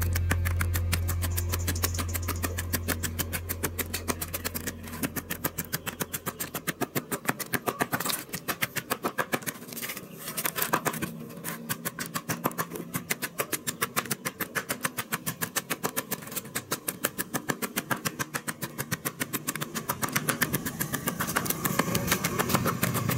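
A wooden pestle pounding chopped tomatoes and onion in a plastic tub in quick, even strokes, several a second. A low hum fades out over the first few seconds.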